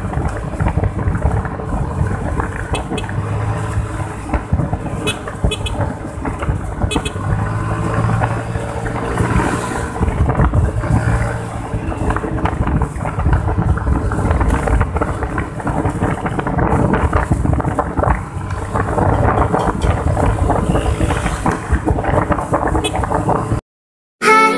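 Riding noise from a moving Yamaha Mio Sporty scooter: its small single-cylinder engine running, mixed with wind rush and road noise. It cuts off abruptly near the end.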